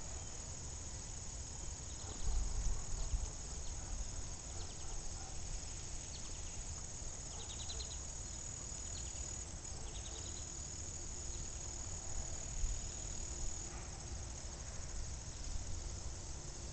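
Insects chirping in a backyard: a continuous high-pitched drone, with short pulsed chirps repeating every second or so. A few low rumbles on the microphone come about two seconds in and again near twelve seconds.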